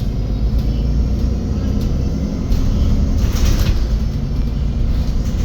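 MAN Lion's City 12 EfficientHybrid CNG city bus running, heard from inside the bus as a heavy low rumble. About two and a half seconds in, a brief hissing noise comes up for about a second.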